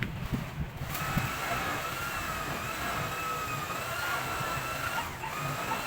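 A small electric motor running with a steady high whine. It starts about a second in and drops away near the end.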